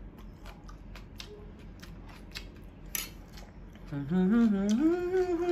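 Small, scattered wet clicks and smacks of someone eating sticky rice and grilled catfish with their fingers. About four seconds in, a person starts humming a wavering, gliding tune with their mouth closed, louder than the eating sounds.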